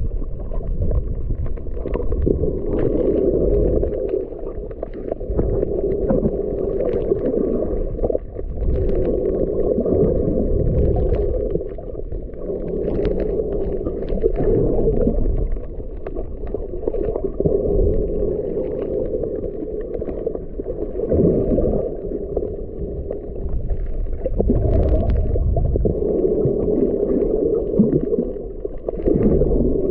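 Muffled underwater noise heard from a camera held below the surface: a low water rumble and gurgle that swells and eases every three to four seconds.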